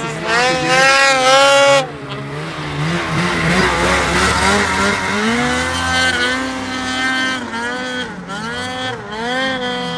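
Ski-Doo Summit 850 snowmobile's two-stroke engine revving hard, its pitch climbing and dropping again and again as the throttle is worked. The loudest pass cuts off sharply about two seconds in, followed by a rush of noise before more revs.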